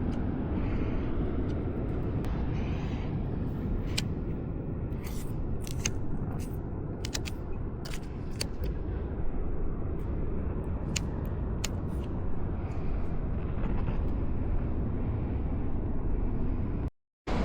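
Steady rumble of wind and surf on an outdoor microphone, with scattered sharp clicks and ticks through the middle.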